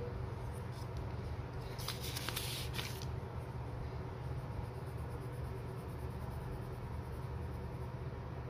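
Deli watercolour pencil scratching lightly on paper as a swatch box is shaded in, with a louder, brief scratchy rustle about two seconds in, over a steady low hum.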